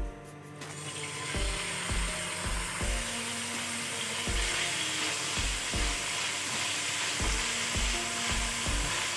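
Diced raw chicken hitting a little hot oil in a non-stick frying pan, sizzling steadily from about half a second in as the pieces are stirred. Soft background music with a steady beat plays underneath.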